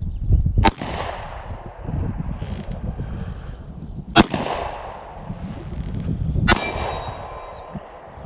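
Three pistol shots, each a sharp crack with a short echoing tail: the first about a second in, the second about three and a half seconds later, the third two seconds after that. A brief ringing tone follows the last shot.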